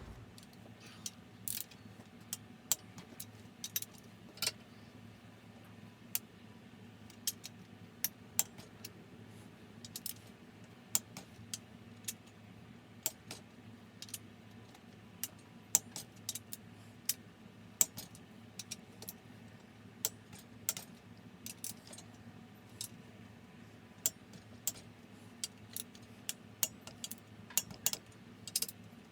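Ratchet torque wrench tightening the main bearing cap bolts of a Honda D16 engine block on the final 38 ft-lb pass: sharp metallic clicks coming singly or in quick little runs at irregular intervals, over a faint steady low hum.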